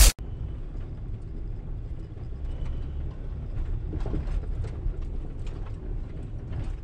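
Motor vehicle running with a steady low rumble, with scattered light knocks and rattles. A brief loud burst sounds right at the start.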